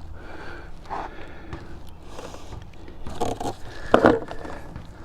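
Gloved hands working plastic tubing and clamps in a car's engine bay: irregular scraping and rustling, with a louder clack about four seconds in.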